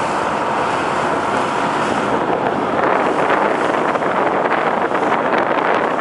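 Wind buffeting the microphone on the deck of a moving ferry, over the steady rush of water along the hull. It grows a little louder about three seconds in.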